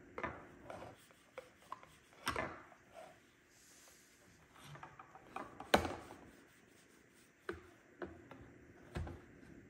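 A cloth wipe rubbing and scrubbing over the plastic top cover of an iRobot Braava 380t robot mop. There are a few sharp knocks of handling, the loudest about six seconds in.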